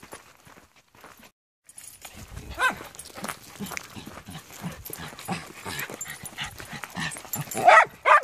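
Dogs running about, a dog giving a short whine a couple of seconds in and two louder yips near the end, over the scuffling of paws on dirt.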